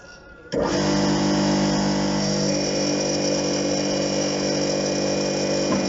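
The electric motor and hydraulic pump of a forklift hydraulic trainer switch on about half a second in and run with a steady hum. Pump pressure opens the pilot-operated check valve, and the forklift cylinder lowers its load under pump power.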